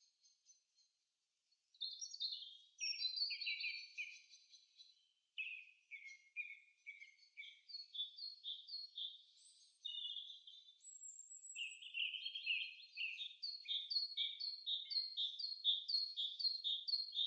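Birds chirping and singing in short high notes, starting about two seconds in. From about halfway on, one bird repeats a short chirp steadily, about two to three notes a second.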